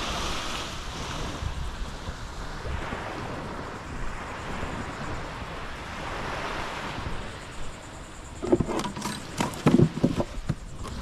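Small surf washing onto a sandy beach, with wind on the microphone. About eight and a half seconds in, a two-second run of loud knocks and clatter.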